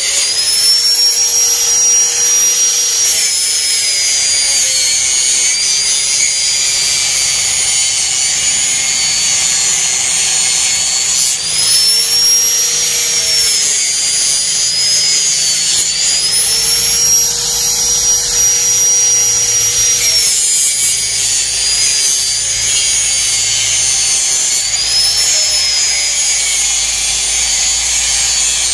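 Handheld electric angle grinder running continuously while grinding at the cast cement along the edges of a fibreglass loster mould. Its high whine sags in pitch each time the disc bites into the material and rises again as it eases off, several times over.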